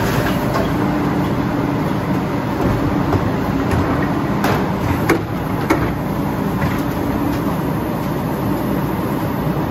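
Labrie split-body garbage truck running steadily while its hydraulic cart tipper lifts a wheeled trash cart up and tips it into the hopper. About halfway through come three sharp bangs, half a second or so apart, as the cart is emptied.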